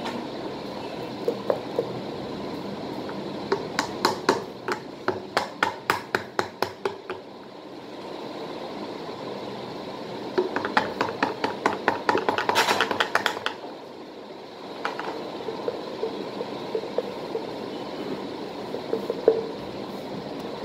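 Plastic Fevicol glue bottle shaken and squeezed upside down over a bowl to get the glue out: two runs of quick sharp taps and splutters, several a second, about four seconds in and again about ten seconds in, with a few single clicks between.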